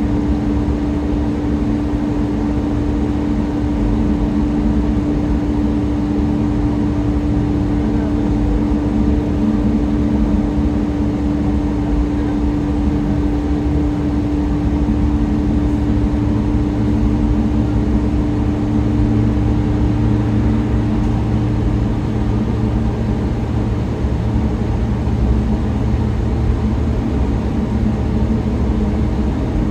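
GO Transit bus cruising at highway speed, heard from inside the cabin: a steady drone of engine, drivetrain and tyres on the road. A steady whine fades out about two-thirds through as a lower hum grows stronger.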